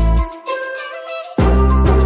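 Background music with a deep bass line that drops out briefly and comes back about halfway through.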